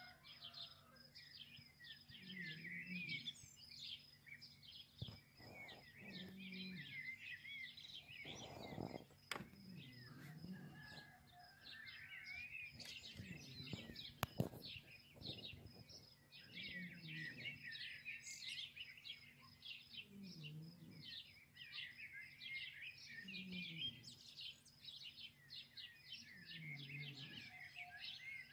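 Many small birds chirping and twittering continuously and faintly. Beneath them a soft low sound recurs about every three seconds, and a single sharp click comes about halfway through.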